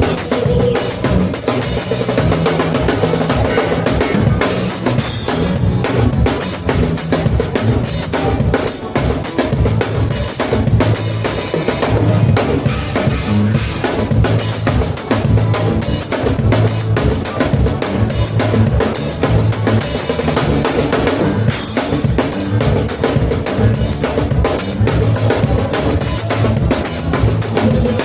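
Live band playing an instrumental passage of gaúcho fandango dance music: a drum kit keeping a fast, steady beat over a bass line, with button accordion leading.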